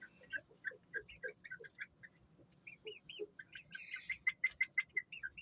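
Young Serama bantam chickens making short, high clucking calls, about three a second at first, with a quicker run of calls near the end.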